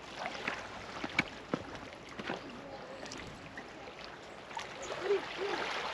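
Small waves lapping and trickling along a shoreline, with scattered little splashes and clicks.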